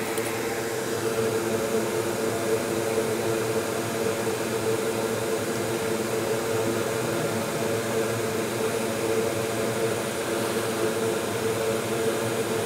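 A bench fume extractor's fan running steadily: an even airy whoosh with a constant low hum in it.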